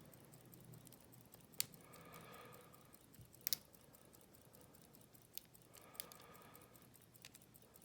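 Faint, sparse metallic clicks of a lock pick and tension wrench working the pins inside an Abus 72/40 padlock, a handful of sharp ticks spread out over quiet.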